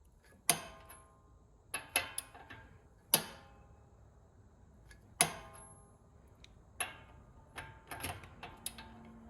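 Ratcheting wrench clicking as a tie rod end's castle nut is tightened a little past its torque figure to line the slot up with the cotter pin hole. About a dozen single sharp metallic clicks, each ringing briefly, come at uneven intervals of roughly a second.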